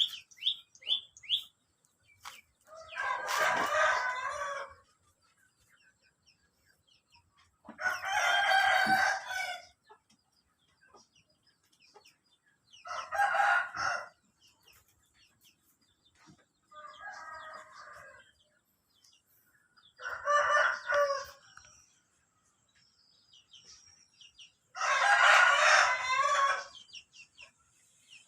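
A rooster crowing over and over, about once every four to five seconds: six crows, the fourth fainter than the rest. Brief bird chirps come near the start.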